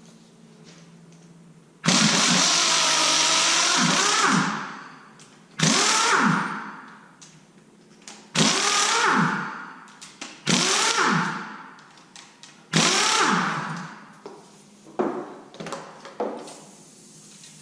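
Handheld power tool spinning bolts out of an LS engine's cylinder head: a run of about two and a half seconds, then four shorter runs of about a second, each dying away as the motor spins down, and two brief blips near the end.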